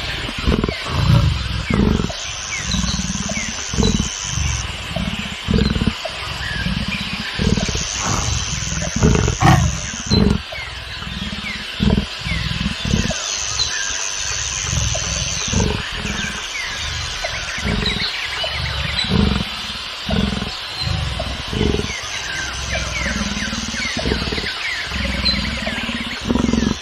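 Leopard grunting and growling in a long series of rough, low calls, one or two a second, over birds chirping in the background.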